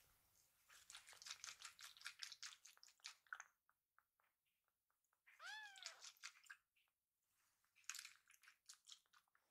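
A very young kitten meows once about halfway through, a single high cry that rises and then falls. Before and after it come spells of rapid soft clicks and crackles.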